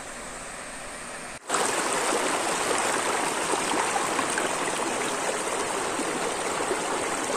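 Clear mountain stream running over rocks: a soft steady rush, then, from about a second and a half in, a louder close rush of water pouring over a rock ledge into a channel.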